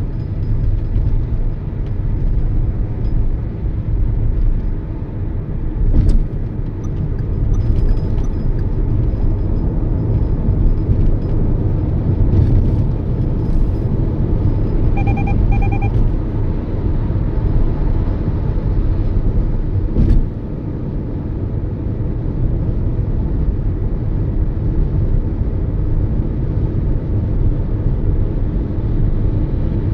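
Toyota Yaris cruising: a steady low rumble of engine and road noise. About halfway through come three short electronic beeps.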